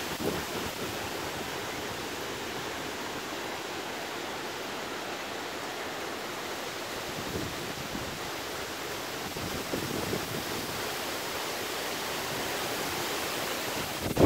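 Rain falling, a steady even hiss.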